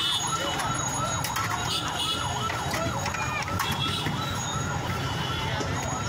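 A rapidly warbling, siren-like tone that rises and falls several times a second, over a steady street din.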